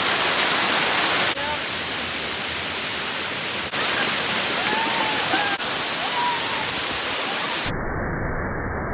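Waterfall water rushing, a steady hiss of falling water that jumps abruptly several times as the sound shifts from one shot to the next. A few faint short chirps sound over it midway.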